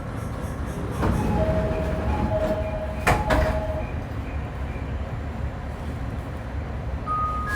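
Steady rumble inside a JR East E501-series electric train's motor car, with two sharp knocks about one and three seconds in and a few short, steady tones between them and again near the end.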